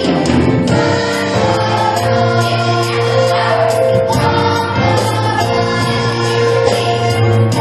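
Many voices singing together with instrumental accompaniment, in long held notes that change every second or so.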